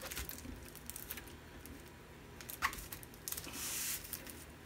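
Handling noise from a plastic-film-covered diamond painting canvas being pressed flat and measured with a tape measure: soft crinkling and a few small clicks, with a longer rustle about three and a half seconds in.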